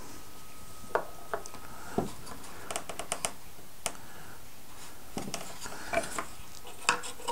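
Scattered light clicks and taps of small model-kit parts being handled: a window frame pressed onto a wooden cabin, with fingers and parts knocking softly against each other and the table.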